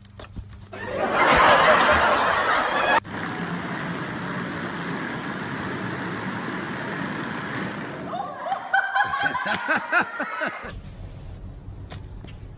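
A loud rush of noise for about two seconds that cuts off suddenly, then a steadier, quieter noise, and then a person laughing for about two seconds before an abrupt change to a low hum.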